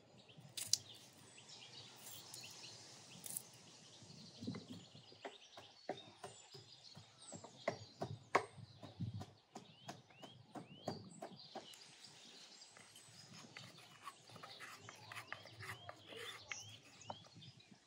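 Scattered sharp wooden knocks and clicks from a wooden pestle working in a wooden mortar and a knife cutting green onions, with birds chirping in short rising calls.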